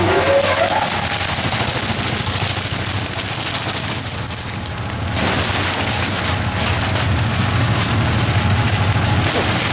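Belt-driven plastic recycling machine running: a steady hum with a dense, rapid rattling clatter, a little louder from about five seconds in.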